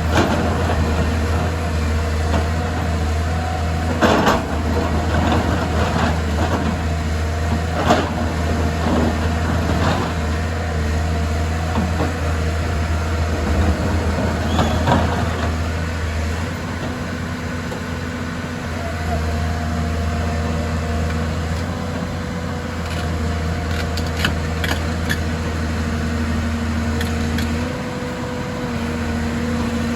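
Excavator's diesel engine running steadily, its note shifting about halfway through, with a few sharp knocks around four, eight and ten seconds in.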